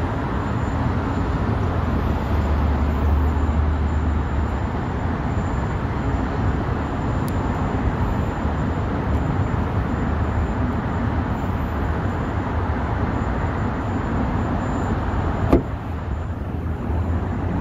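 Steady background rumble and hiss, with one sharp click about fifteen and a half seconds in as a hood strut's socket end is pried off its ball stud with a flat screwdriver.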